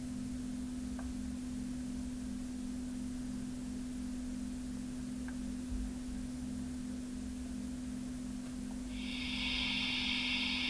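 A faint steady hum. About nine seconds in, the operating sound of a Trix BR 44 model steam locomotive's sound decoder is switched on and gives a steady hiss.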